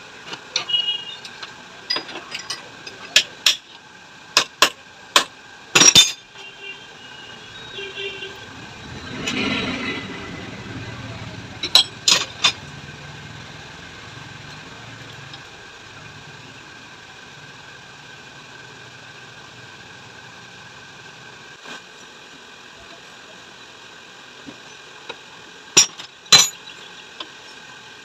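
Metal tools clinking and tapping against a motorcycle mono-shock absorber, then a short rush of gas about nine seconds in as the shock is filled with nitrogen. A low steady hum follows for about ten seconds, with a couple more sharp clinks near the end.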